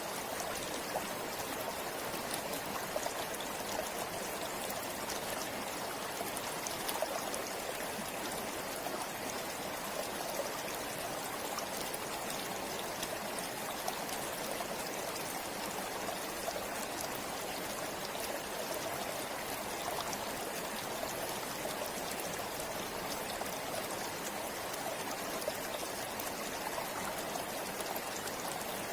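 A forest stream or river flowing steadily over rocks, a constant rushing babble with small splashes and trickles.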